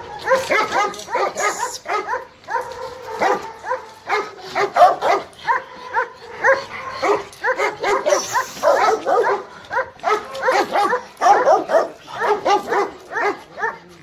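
Several dogs, Rottweilers and a German shepherd, barking excitedly in a rapid, overlapping chorus that keeps on without a break.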